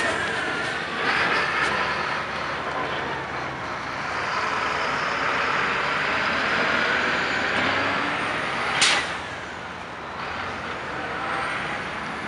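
Box truck driving past close by, its engine and tyres running over steady street traffic, with a sudden short hiss about nine seconds in.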